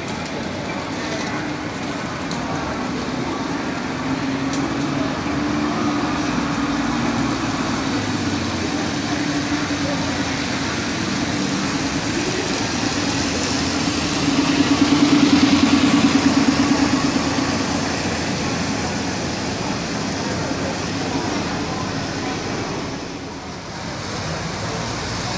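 City bus diesel engine and tyres on a wet road as the bus pulls past close by; the engine note and tyre hiss build up and are loudest a little past the halfway point, then ease off.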